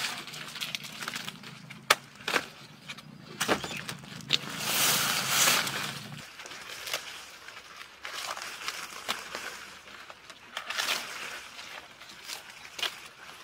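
A machete striking and scraping along sugarcane stalks as the dry leaves are stripped off, with sharp knocks and rustling, swishing strokes of cane leaves. A low steady hum runs underneath for the first half and then stops.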